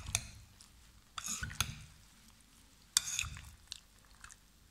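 Wet squelching of thick gram-flour and rice-flour batter being mixed through marinated rohu fish pieces in a bowl, in three short spells with pauses between.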